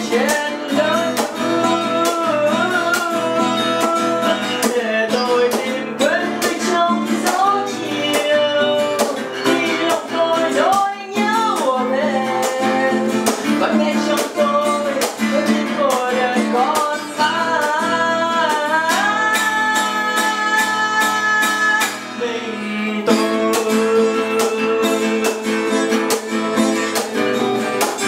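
Acoustic guitar played through a slow song, with a voice singing a wavering, held melody over it.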